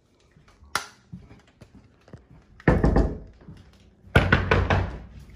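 Knuckles rapping on a wooden door: a quick run of loud knocks about two and a half seconds in and another about four seconds in, after a single sharp click near the start.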